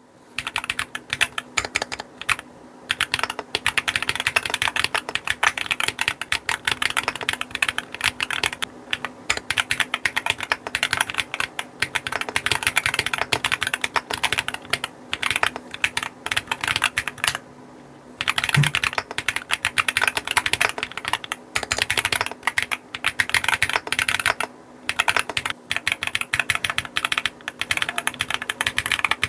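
Fast, steady typing on a Qwertykeys QK60 R2 mechanical keyboard with TTC HolyPanda tactile, non-clicky switches: a dense run of keystroke clacks, broken by a few short pauses.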